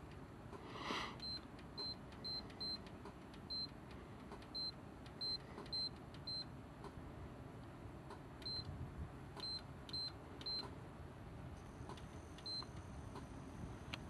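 About fourteen short electronic beeps, all at the same high pitch, come at irregular intervals over a faint steady background hiss. There is a brief louder rush of noise about a second in.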